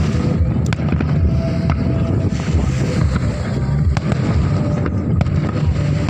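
Fireworks going off: sharp cracks about once a second over a steady low rumble.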